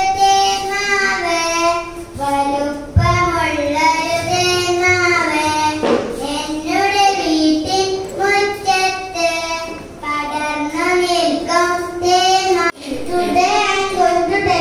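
A young child singing solo and unaccompanied, in held, gliding notes with short breaks between phrases.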